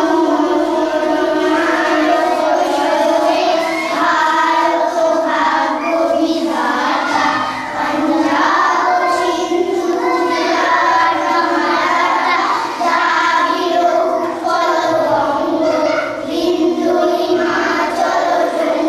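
A group of children singing together in unison, in long held phrases with brief breaths between them.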